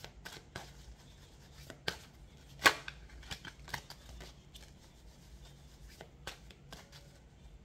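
Faint scattered clicks and rustles of tarot cards being handled on a tabletop, with one sharper click nearly three seconds in.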